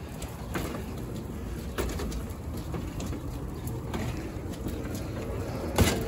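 A gas-fired steel boiler rolling over concrete on a wheeled dolly: a steady low rumble with scattered rattles and clicks, then a sharp knock near the end.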